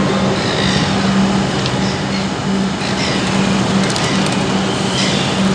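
Electric suburban train standing at a platform, its equipment giving a steady low hum, while its passenger doors close, with a few clicks about four seconds in.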